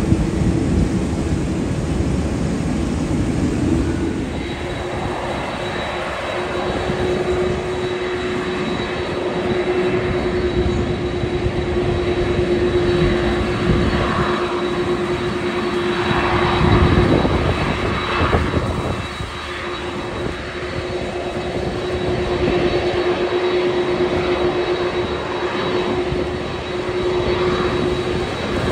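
Twin-engine wide-body jet airliner taxiing close by, its engines running at low taxi power: a steady whine over a low rumble, with a faint high whistle joining about four seconds in.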